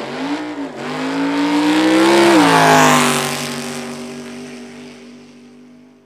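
A sampled car engine revving: the pitch climbs for about two seconds, then drops and dies away.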